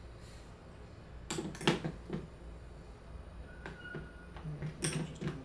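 Sharp metallic clicks and clinks of an open-end wrench on a brass carburetor fuel-filter fitting as it is worked loose by hand, in two short clusters: about a second and a half in, and again near the end.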